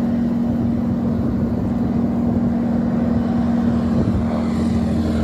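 Ag-Cat crop-dusting biplane's engine and propeller droning steadily as it flies low while sowing, its sound growing brighter near the end as it comes closer.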